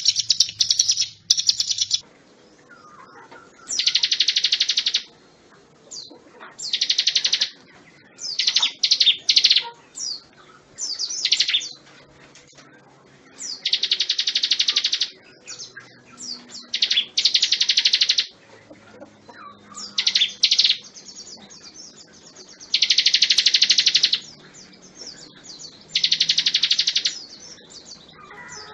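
Ciblek gunung (a mountain prinia) singing: fast, high trilled phrases about a second long, repeated with short pauses every two to three seconds.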